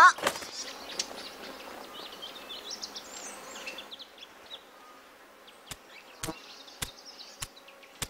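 Faint meadow ambience of buzzing insects with small high chirps. Near the end come four light clicks about half a second apart.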